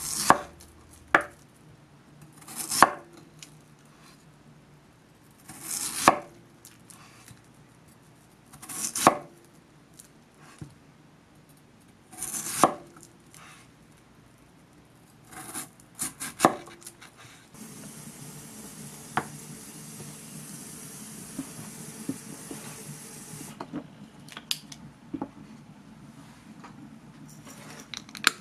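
Kitchen knife slicing a peeled daikon radish into thick rounds on a wooden cutting board: slow, separate cuts about every three seconds, each ending on the board, with a quicker few near the middle. In the second half a steady hiss runs for about six seconds.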